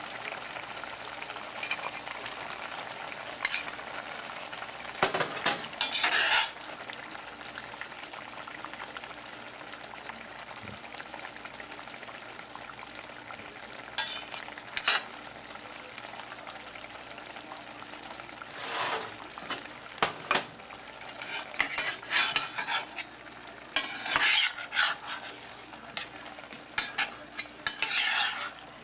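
Tofu sizzling steadily in a stainless steel skillet, with a metal spatula scraping and clinking against the pan in short spells, most often in the second half.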